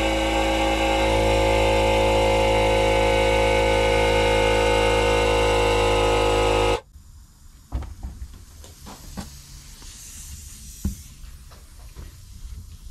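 Air compressor running steadily, then cutting out abruptly about seven seconds in. After it stops there is a faint hiss of air leaking from the pressurised exhaust pipe, with a few small clicks.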